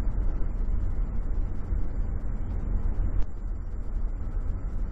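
Road and engine noise inside a moving car's cabin, picked up by a cheap camcorder's built-in microphone: a steady low rumble with tyre hiss. A single sharp tick about three seconds in.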